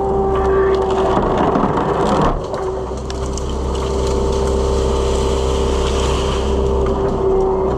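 Skid steer engine running steadily with a constant hydraulic whine from the tree shear attachment; the sound dips briefly about two seconds in before carrying on.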